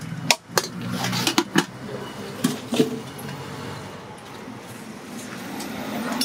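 Roadside street ambience with traffic and faint voices, broken by several sharp clinks of steel serving pots and ladles in the first three seconds.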